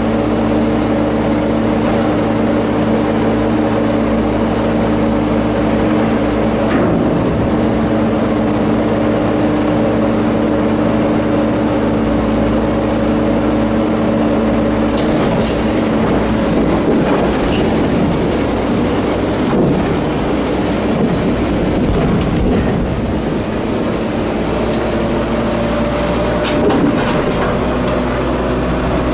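Freight cars of a slow-moving work train rolling past close by, with a steady engine hum and the rumble and clatter of wheels on rail. The hum fades about halfway through, and a few sharp clanks or brief squeals break through in the second half.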